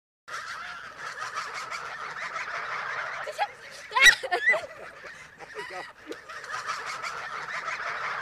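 A flock of domestic geese calling and honking together, many overlapping calls starting a moment in. One goose gives a loud call close by about four seconds in.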